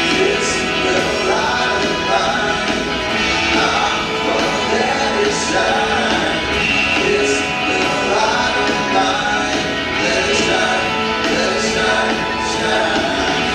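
A song playing: a voice singing over band accompaniment.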